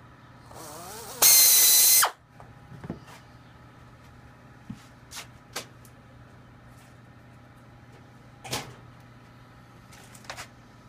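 Pneumatic air drill drilling a small hole through thin aluminium sheet. It winds up briefly, then runs at full speed for about a second as a loud, high whine with air hiss, and cuts off about two seconds in. A few light clunks and clicks of tools being handled and set down on the bench follow.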